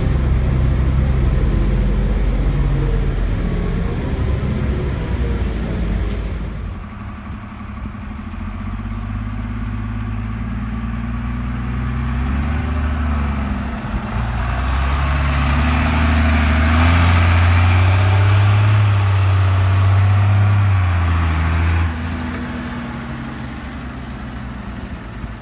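New Flyer D40LF transit bus with a Cummins ISC diesel, heard first from inside the cabin as it drives. After a cut about six seconds in it is heard from outside as it pulls away: the engine note builds to its loudest past the middle, then drops and fades as the bus moves off.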